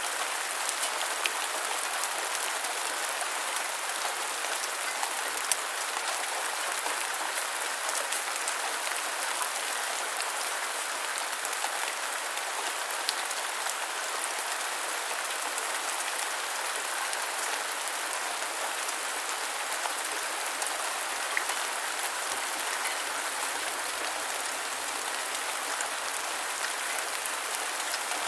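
Light rain falling steadily, a continuous patter with scattered individual drops ticking.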